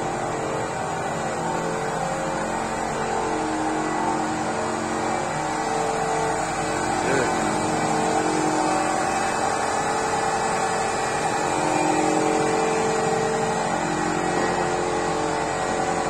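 Steady hum of a motor running, with several tones that drift slightly in pitch and a brief rising-and-falling glide about seven seconds in.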